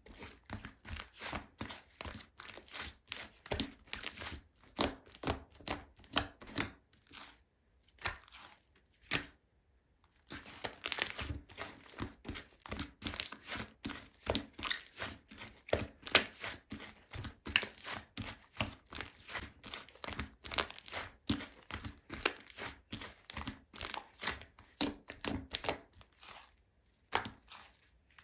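Aurora slime being pressed, poked and stretched by hand: a steady run of short sticky clicks and crackling pops, about two to three a second, with a brief pause about ten seconds in.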